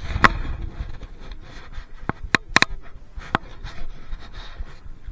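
Close handling noise: rustling and scraping against the microphone, with a thump at the start and a few sharp clicks and taps in the middle.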